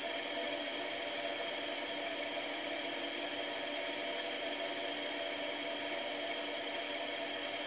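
Steady whirring hum: an even hiss with a few constant tones running underneath, unchanging throughout.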